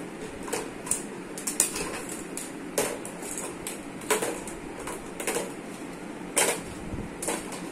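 Plastic toy fruits, vegetables and eggs being dropped one by one into a plastic tub, knocking and clattering in about ten irregular sharp clicks.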